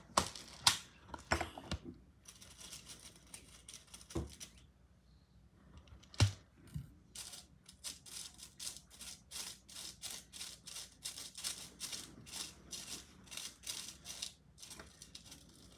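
Clay beads and a clear plastic bead organizer box being handled, giving light plastic clicks: a few separate clicks at first, a sharper knock about six seconds in, then a quick run of light clicks, several a second, until near the end.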